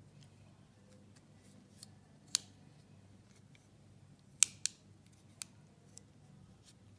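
Leatherman Free P4 multitool's fold-out tools clicking as they are handled, opened and closed: a handful of sharp, separate clicks, two of them in quick succession past the middle.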